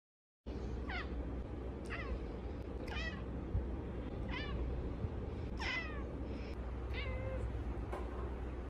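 A cat meowing in short, high calls that each slide down in pitch, about seven of them roughly a second apart, over a steady low background noise.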